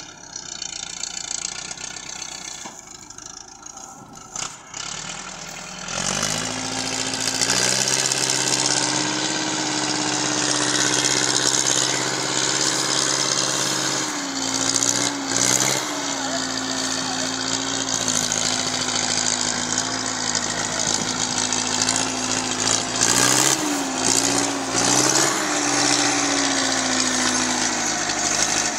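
Diesel tractor engine pulling a heavily loaded trolley, getting louder about six seconds in and settling into a steady working note. The pitch dips briefly twice and eases slightly near the end.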